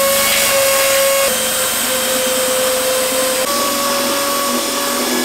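Electric power saw running steadily through plywood, its motor whine shifting slightly in pitch as the cut loads it, then cutting off suddenly near the end.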